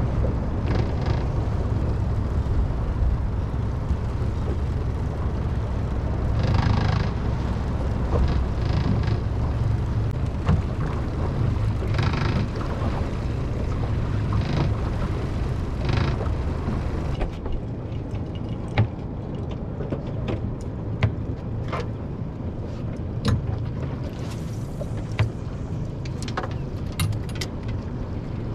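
Steady low rumble of a small fishing boat at sea, with a few louder rushing swells of noise. About two-thirds of the way through it turns quieter, and scattered sharp clicks follow.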